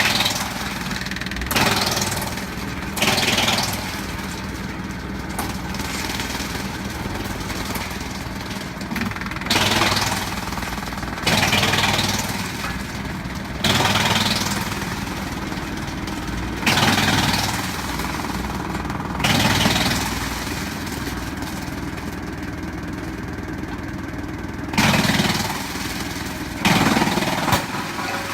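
400B model wood chipper running steadily under engine power, with loud bursts of chipping noise every few seconds as material goes through the cutters.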